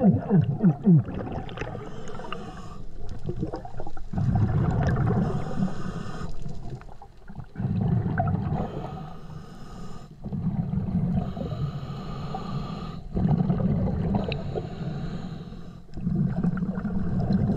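Diver breathing underwater through the regulator of a Brownie's Third Lung hookah system: a hiss on each inhale alternating with a rumble of exhaled bubbles, about four breaths. A burble of bubbles rushes past at the very start.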